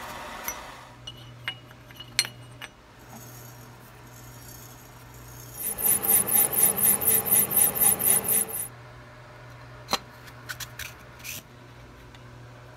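A hand-held diamond file scraping against the inner edge of a metal bore spinning in a lathe, in quick regular strokes of about four or five a second for about three seconds mid-way. Before and after, scattered sharp clicks and knocks of metal parts being handled, over a steady low hum.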